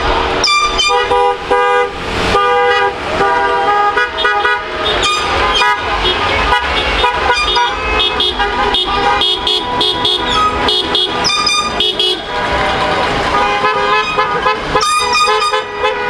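Many car horns honking over and over, overlapping at different pitches, as a slow line of cars drives past.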